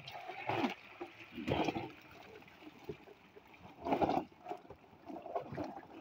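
Irregular splashing and sloshing of water and live fish as a wet net full of small fish is emptied into a plastic tub, loudest about four seconds in.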